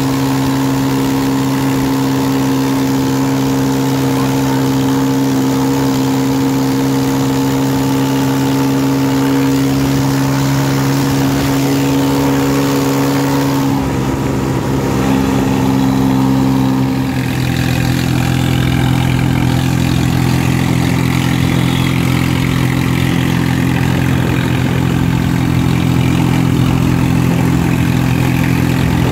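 Swaraj 855 tractor's three-cylinder diesel engine running steadily under way, with a steady droning note. Its note shifts about halfway through.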